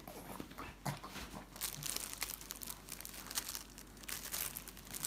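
Shih tzu chewing a piece of bread: a dense run of quick, sharp crackles that thickens about a second and a half in.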